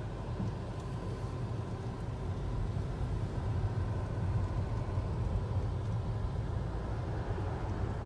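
Steady low rumble of a car's engine and tyres heard from inside the cabin while it moves slowly in heavy traffic.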